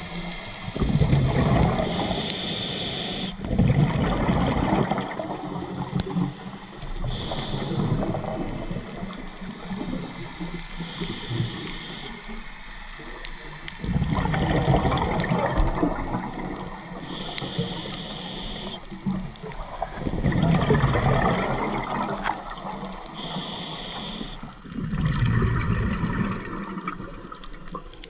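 Scuba diver breathing through a regulator underwater: a short hiss on each inhale, then a longer burst of bubbles on each exhale, repeating about every five or six seconds, about five breaths in all.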